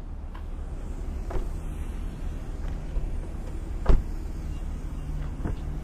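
A few knocks and bumps as a car door is handled, the loudest about four seconds in, over a steady low rumble and a faint hum.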